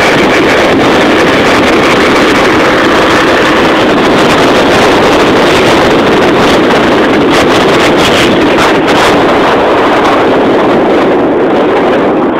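Motor scooter running at cruising speed, about 80 km/h, with a steady loud engine drone mixed with wind rushing over the microphone.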